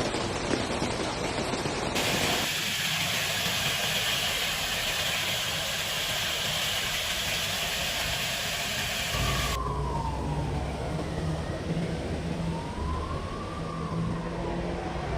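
A steady rushing hiss that changes abruptly about two seconds in, then, from about ten seconds in, an emergency-vehicle siren wailing down and back up over the low hum of a vehicle engine.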